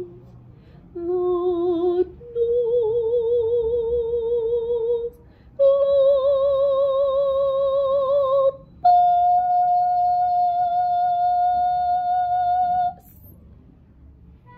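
A woman's operatic voice singing unaccompanied: four long notes with vibrato, each higher than the last, the top note held for about four seconds before stopping.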